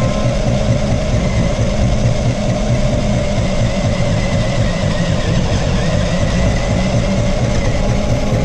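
Off-road RC car driving over beach sand, heard from a camera mounted on it: a steady rumble with a faint, steady high whine.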